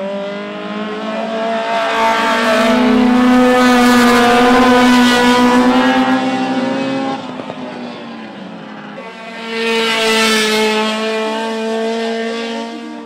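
Race car engines running hard as a group of cars passes through a corner, loudest a few seconds in, then fading. About ten seconds in, a single race car passes more briefly.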